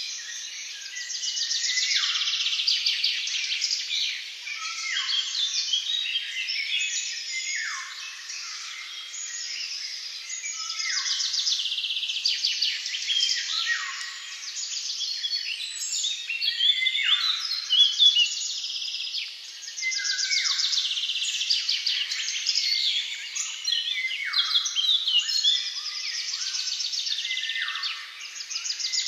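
Songbirds singing in a dense, overlapping chorus, with one song phrase recurring every two to three seconds, each ending in a quick drop in pitch.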